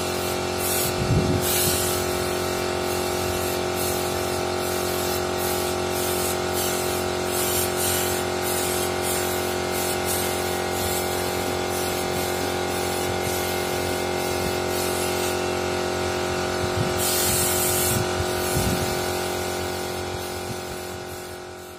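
Compressed-air paint spray gun hissing in short irregular bursts as the trigger is pulled, with one longer burst near the end, over a steady drone of layered tones. Everything fades out in the last couple of seconds.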